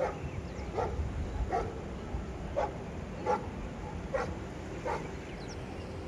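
A dog barking repeatedly, about seven barks spaced under a second apart.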